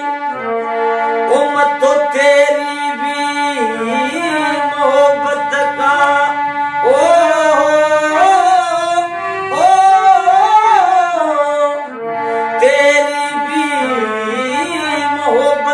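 Man singing a Haryanvi ragni in a gliding, ornamented melody, accompanied by his own harmonium playing held reed tones beneath the voice.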